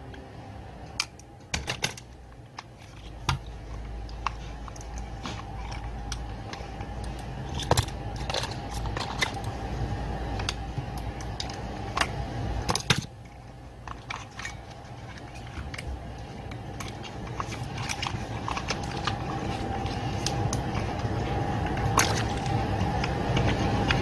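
Scattered clicks and taps of a screwdriver and hard plastic parts as the carburetor is unscrewed and worked loose from a Husqvarna 440 chainsaw, over a steady background hum.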